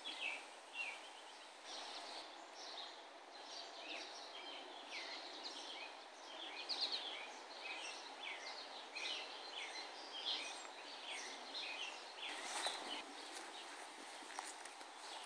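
Small birds chirping and twittering over and over, many short quick calls, over a steady haze of outdoor background noise.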